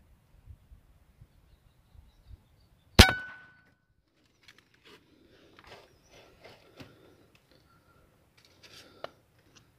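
Air rifle firing a single shot about three seconds in: a sharp crack with a brief metallic ring. Faint scattered clicks and taps follow.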